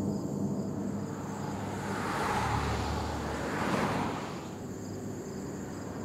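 A vehicle passing by: its noise swells, holds with a low rumble for a couple of seconds, and fades away about four seconds in. Faint insect buzzing continues behind it.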